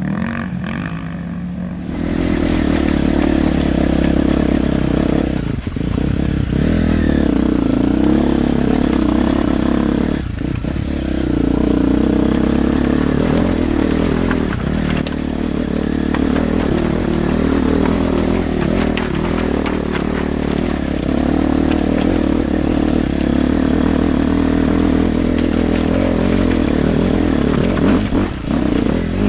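Off-road motorcycle engine running steadily while riding, with occasional faint knocks and clatter. It comes in about two seconds in.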